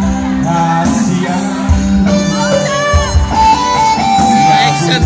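Music with a singing voice over a low beat.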